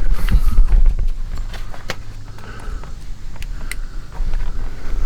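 Footsteps on rock and dry leaf litter, with scattered crunching clicks and two sharper clicks, over a low rumble that is strongest in the first second or so.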